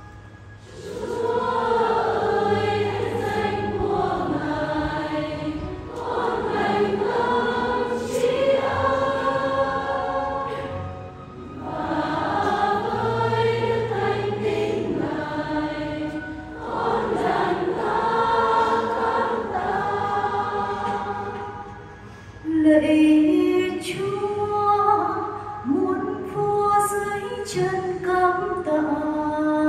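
A choir sings a hymn in four long phrases with short breaks between them. From about three-quarters of the way through, the phrases turn shorter and louder.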